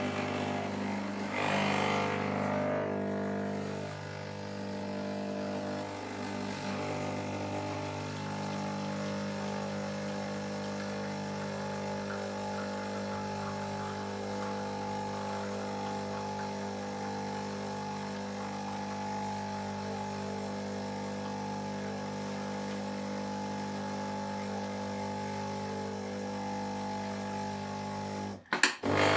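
Sage (Breville) Oracle Touch espresso machine's pump running steadily as it pulls an espresso shot: a constant hum made of several layered tones. A little handling noise comes in the first couple of seconds as the portafilter goes in.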